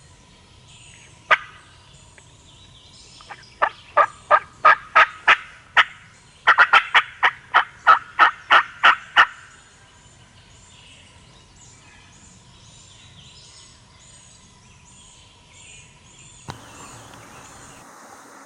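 Turkey yelps: one sharp yelp about a second in, then a run of about seven yelps and a longer run of about a dozen, roughly three a second.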